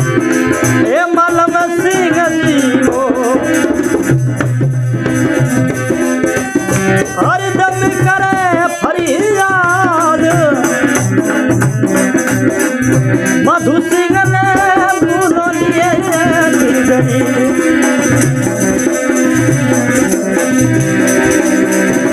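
Rajasthani folk devotional song: a male voice sings a winding, gliding melody over a steady rhythm from a dholak drum and the jingles of a khanjari frame drum.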